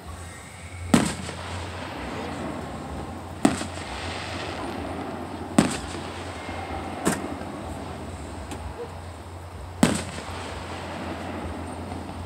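Aerial firework shells bursting at a distance: five sharp bangs a couple of seconds apart, each trailing off in a short rumble. A steady background noise runs underneath.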